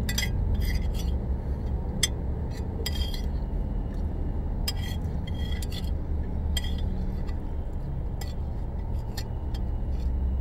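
A metal spoon clinking and scraping against a plate in short, irregular ticks, over a steady low hum inside a car.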